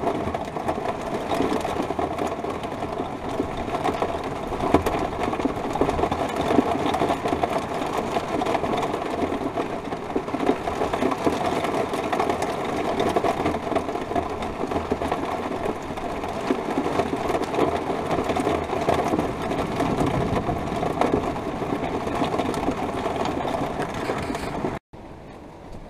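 Heavy thunderstorm rain drumming hard on an RV's roof and windows, heard from inside as a dense, steady, rapid patter. The level drops suddenly near the end.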